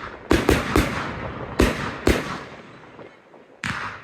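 Fireworks bursting overhead: three sharp bangs in quick succession in the first second, two more over the next second or so, then a lull and one last bang near the end, each followed by a rolling echo that dies away.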